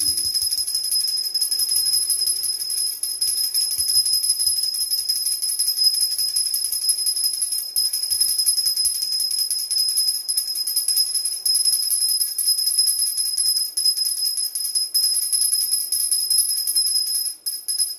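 Brass pooja hand bell rung rapidly and without pause, a steady, high, shimmering ringing.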